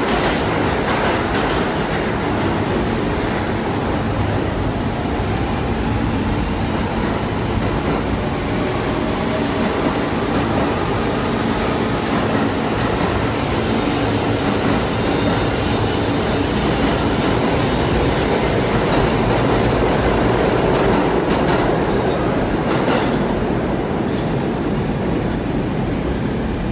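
Pullman Standard R46 subway train running on the track: a steady, loud rumble of wheels on rail, with faint tones that glide in pitch.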